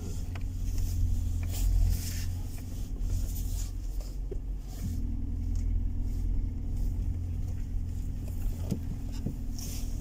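Second-generation Toyota Prius rolling slowly over a rocky dirt road, heard from inside the cabin: a steady low rumble of tyres and suspension, with a few sharp knocks from stones under the car.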